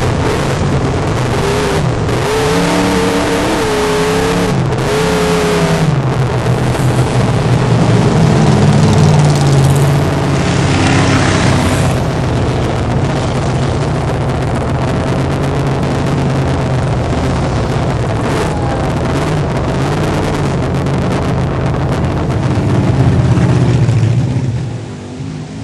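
Off-road race car engine running hard at high revs, its pitch rising and falling again and again as the throttle comes on and off. The sound drops off a little before the end.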